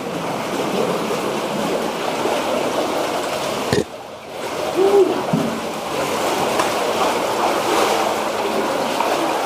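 Steady rush of running, splashing water. It breaks off sharply about four seconds in and starts again half a second later.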